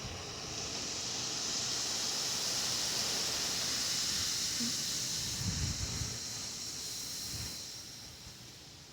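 A gust of wind with a high hiss that swells over the first couple of seconds, holds, then dies away near the end, with wind buffeting the microphone about halfway through.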